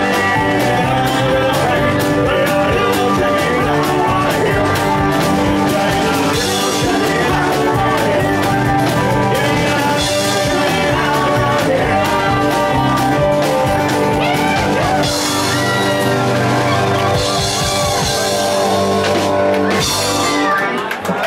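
Live blues rock band playing: drum kit with cymbals, electric bass, guitars and a singing voice, loud and continuous, with a brief drop in the music just before the end.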